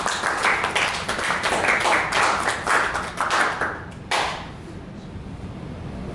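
A small audience clapping, dying away after about three and a half seconds, with one last louder clap just after four seconds in.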